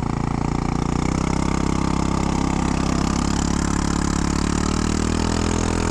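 Honda Ruckus scooter's engine, a 150cc GY6 swap, idling steadily, its pitch lifting slightly about a second in.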